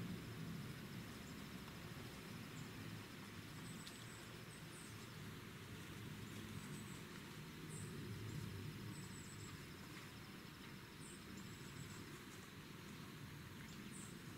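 Faint outdoor ambience: a steady high insect trill, which drops out briefly about five seconds in, and a few short high bird chirps over a low rumble.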